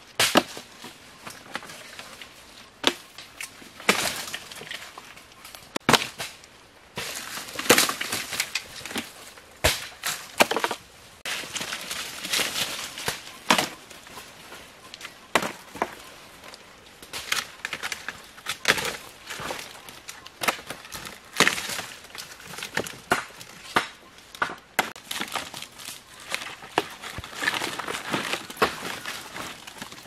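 Dry palm stems and leaves cracking and snapping as they are broken and pulled out by hand, with crackling rustle of dry undergrowth between the irregular sharp snaps.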